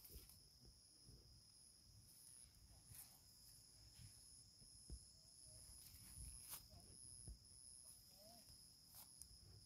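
Near silence, with insects trilling faintly in the background: a steady high buzz and a pulsing higher tone above it, broken by a few faint taps.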